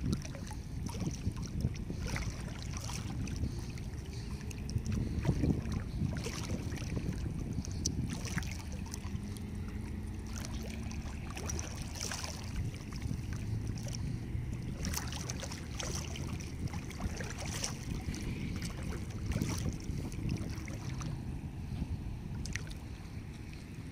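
Wind rumbling on the microphone over small sea waves lapping, with scattered little splashes of water throughout.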